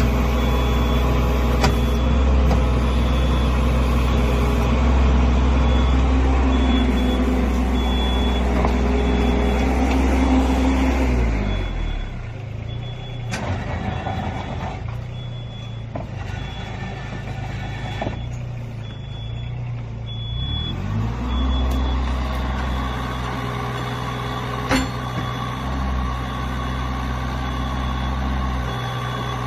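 Kobelco SK23 mini excavator's diesel engine running at working revs. About eleven seconds in it drops to a lower idle, and about nine seconds later it revs back up. A faint high beep repeats throughout, and there is a single sharp clack near the end.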